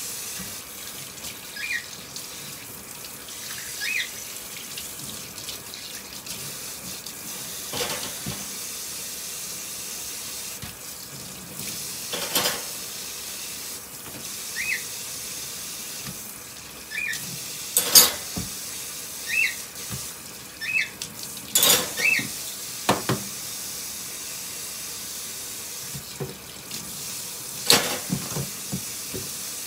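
Kitchen tap running steadily into a sink, with clinks and knocks now and then. About nine short high chirps from a cockatiel come through at intervals.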